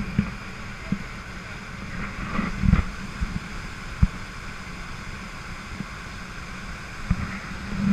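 Motorboat running on the water, a steady low motor hum with wind buffeting the microphone and water rushing past. A few dull thumps, the loudest about three and four seconds in.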